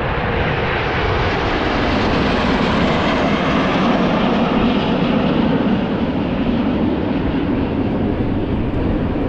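Airplane engine noise from an aircraft passing overhead, a steady rushing sound that builds to its loudest about three to four seconds in and then eases a little.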